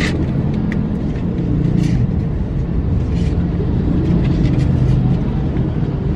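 Steady low rumble of a car idling, heard inside the cabin, with a few faint paper rustles as an invitation is handled.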